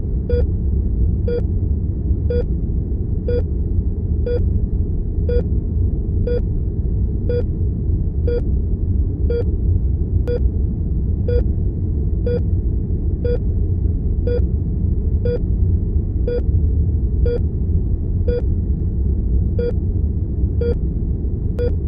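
Patient heart monitor beeping steadily about once a second, a short mid-pitched pulse tone for each heartbeat, over a steady low rumble of room tone.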